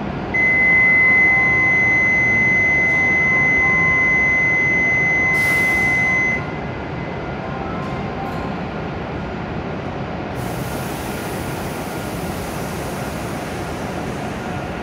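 A steady, high electronic warning tone held for about six seconds, sounding as the doors of a departing Shinkansen close. It stops suddenly, and a steady hiss sets in about ten seconds in over a constant rumble of station and train noise.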